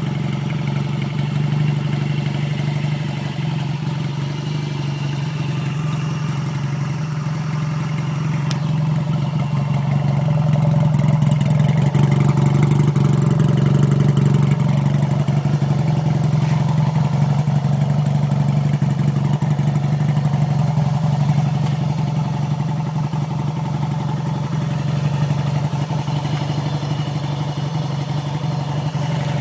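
Yamaha XS650 air-cooled parallel-twin motorcycle engine running steadily at idle after a rebuild. It gets louder for a stretch in the middle, then eases back.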